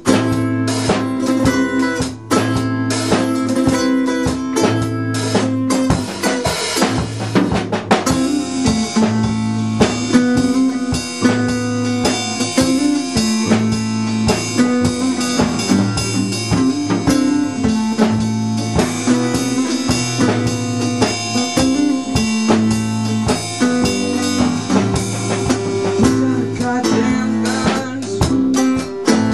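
Small acoustic band playing a song without vocals: strummed acoustic guitar, plucked upright double bass and a drum kit keeping a steady beat.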